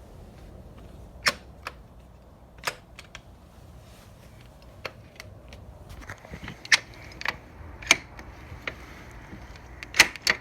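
Sharp clicks and knocks of a door handle and lock being worked on a back door that won't open, a few seconds apart at first, then closer together, with the loudest pair near the end.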